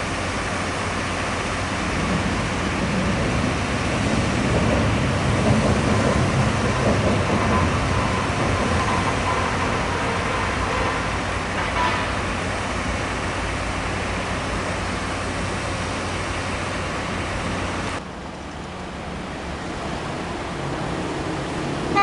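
Small Schoema diesel shunting locomotive's engine running at close range, a steady mechanical drone that swells a little partway through. About three-quarters of the way in, the sound cuts to a quieter, steady background rumble.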